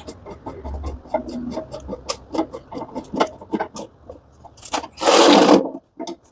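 Ratchet wrench on a long extension tightening the nuts of a washing machine drum's new shaft-and-spider: a run of irregular metal clicks and knocks, with one louder, harsher sound lasting under a second about five seconds in.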